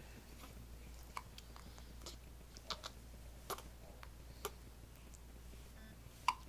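Newborn baby hiccuping: a series of short, faint hics roughly a second apart over quiet room tone.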